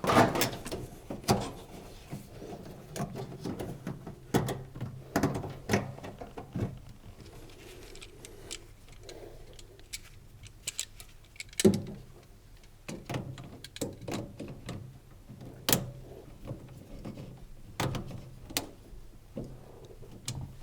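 Irregular clicks, knocks and rustles of hands fitting a new rubber drain hose onto a washing machine's drain pump and fastening its hose clamps.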